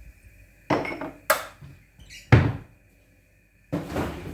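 A few separate knocks and thuds as kitchen things are handled and set down, one much louder thud about halfway through.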